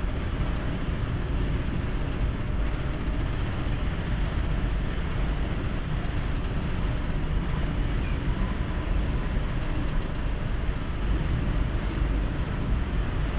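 Steady low rumble and rushing wind noise aboard a lake freighter underway in heavy seas.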